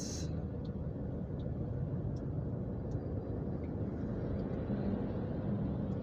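Steady low hum of a van's engine running in slow stop-and-go traffic, heard inside the cab.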